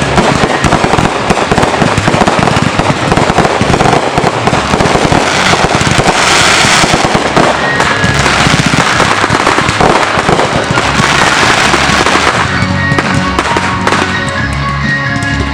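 A dense, continuous barrage of fireworks bursts and crackling. About three-quarters of the way through it thins out, and rock music with guitar comes through underneath.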